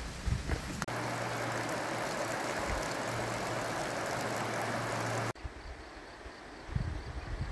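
Steady rush of a shallow stream running over rocks, with a low hum underneath; it cuts off suddenly after about five seconds, leaving a quieter background.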